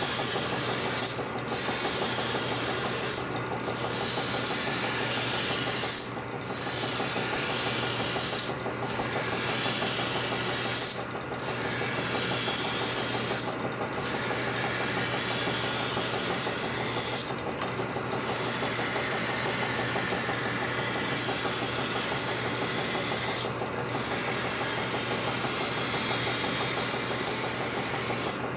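Coarse sandpaper rubbing on a part spinning in a lathe, a steady hiss over the lathe's running hum, with brief breaks every few seconds as the paper is lifted and shifted.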